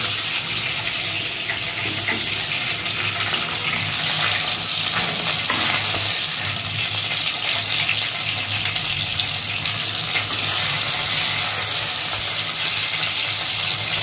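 Battered chicken pakoras deep-frying in hot mustard oil in a kadai: a steady, dense sizzle.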